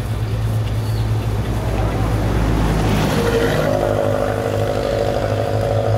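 Songthaew pickup truck's engine running as it drives by on the road, its engine note growing louder and clearer about three seconds in, over a steady low drone.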